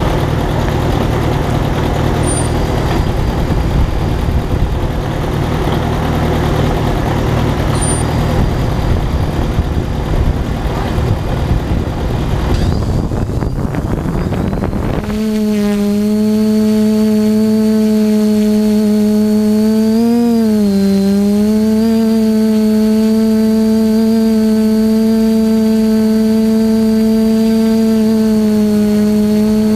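An antique tractor's engine running, rough and noisy. About halfway through, the TBS Discovery quadcopter's motors spin up with a rising whine and it lifts off. From then on its propellers give a loud, steady hum heard from the drone's own camera, with a faint high motor whine above it and one brief dip and recovery in pitch.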